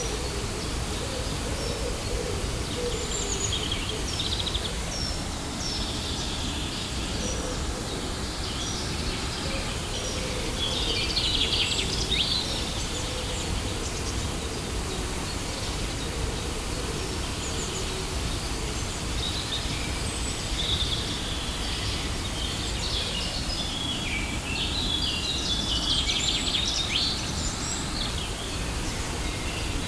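Steady rushing noise of a waterfall, with birds chirping over it in scattered bursts, busiest about a third of the way in and again near the end.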